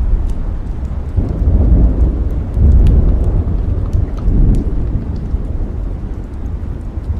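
Steady rain with a low rumble of thunder that swells about a second in, rolls on for several seconds and then fades, with scattered sharp crackles throughout.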